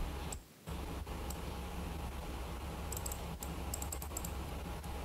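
Computer keyboard clicking: a few scattered key clicks, then a quick run of them between about three and four seconds in, over a steady low hum.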